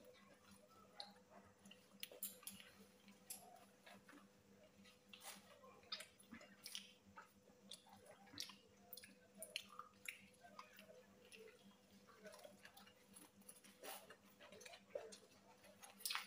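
Faint chewing and mouth smacks of two people eating egg rolls, with many small irregular clicks over a faint steady hum.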